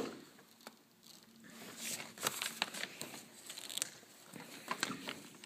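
Faint handling noise: soft rustling with scattered light clicks and knocks, a few sharper ones from about two seconds in and near the end.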